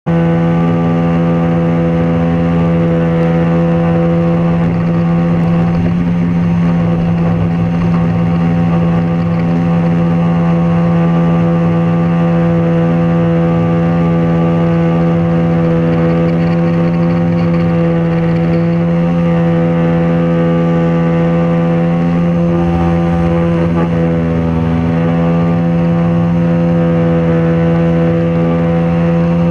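40 hp Johnson jet outboard running at a steady speed under way, its even engine tone holding constant apart from a brief dip about three quarters of the way through.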